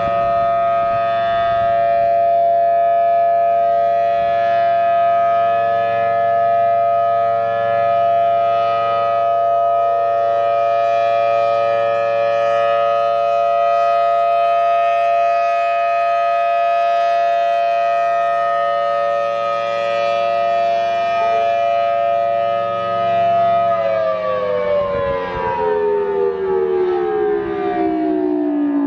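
Outdoor tornado warning siren holding a steady, two-note tone, then winding down with steadily falling pitch from about 24 seconds in.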